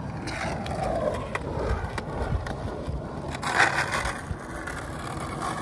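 Freestyle skateboard wheels dragging and scraping sideways across a painted court surface as the board pivots off the nose and carves around backwards, the wheels held in full contact with the ground. The scrape swells loudest about three and a half seconds in, with a few sharp clicks from the board.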